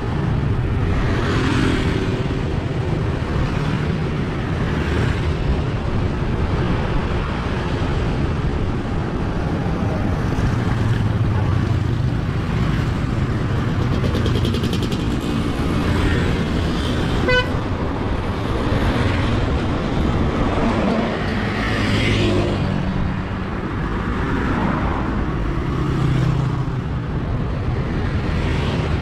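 Road traffic, mostly motor scooters with some cars, passing one after another, their engines swelling and fading as each goes by. A single short horn toot sounds about two-thirds of the way through.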